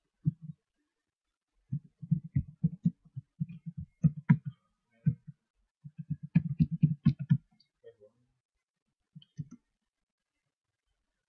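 Computer keyboard typing in quick runs of keystrokes: one run about two seconds in, a denser run about six seconds in, and a few single taps near the end.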